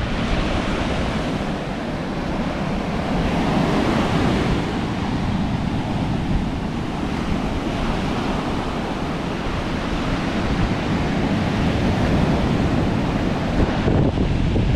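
Strong sea surf breaking and washing up a sandy beach in a steady rush, with wind buffeting the microphone.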